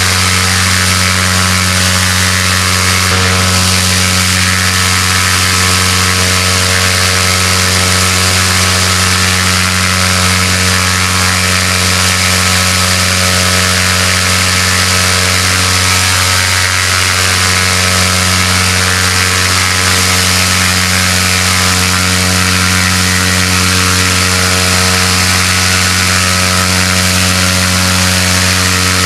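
A steady, unchanging engine drone with a continuous hiss of water spraying from hoses.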